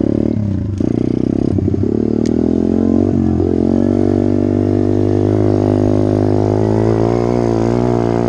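SSR 125 pit bike's single-cylinder four-stroke engine pulling under throttle up a dirt hill. The revs dip and rise several times in the first two seconds, then hold steady, wavering slightly near the end.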